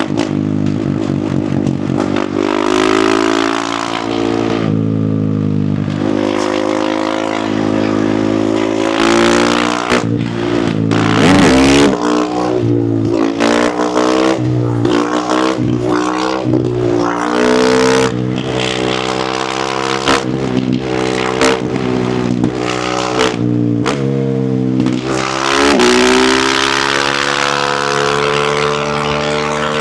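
KTM supermoto motorcycle engine being ridden hard, the revs climbing and dropping again and again as it runs through the gears. Through the middle comes a rapid run of short throttle chops and blips, and near the end a long, steady pull.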